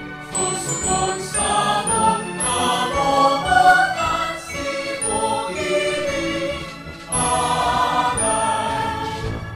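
Voices singing a Bikol-language song in praise of Sorsogon over musical accompaniment.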